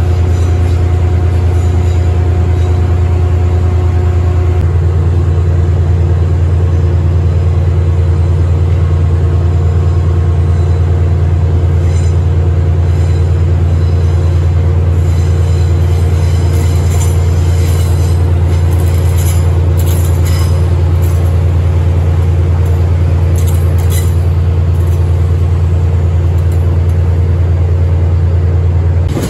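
A diesel train's engine running with a loud, steady low drone; a second, slightly higher hum joins about five seconds in. Faint high squeals and clicks from wheels on the rails come and go in the middle.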